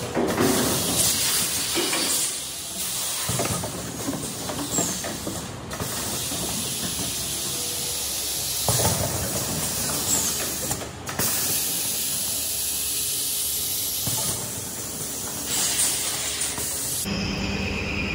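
Automatic rotary honey-spoon filling and sealing machine running, with a hiss of compressed air from its pneumatic cylinders over the machinery. Near the end the sound changes to a steadier hum.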